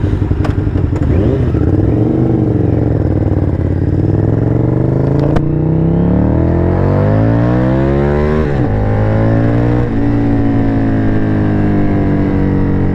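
Honda VTR sport bike's V-twin engine pulling away from a stop, its revs climbing steadily for several seconds. Two upshifts drop the pitch, the first about two-thirds of the way through and the second a second later, and the engine then settles into an even cruise.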